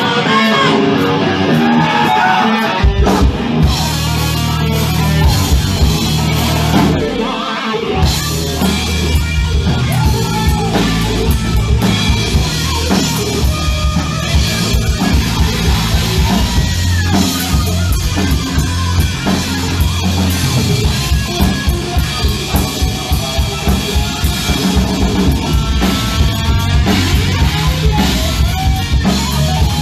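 Hard rock band playing live: pounding drum kit, distorted electric guitar and bass, with a male lead singer in parts. The low end drops out for a moment about eight seconds in, then the full band comes back in.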